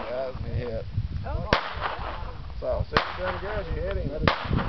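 Three shots from a semi-automatic AR-15 rifle, each a sharp crack, spaced about a second and a half apart.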